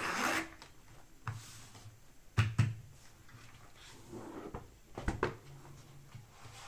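Stiff leather bag panels being lifted, flexed and laid down on a cutting mat: a brushing rustle at the start, then several short knocks and taps, the loudest pair about two and a half seconds in and another pair about five seconds in.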